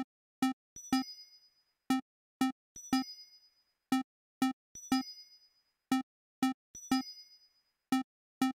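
Live-coded electronic rhythm of 'blip' and 'tink' samples: short pitched blips about twice a second, some followed by a high, ringing bell-like note that fades away.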